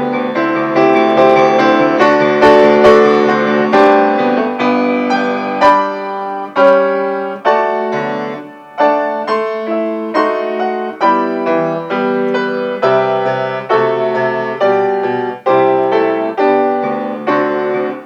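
Solo piano playing a postlude: a run of struck chords and melody notes, with no voice.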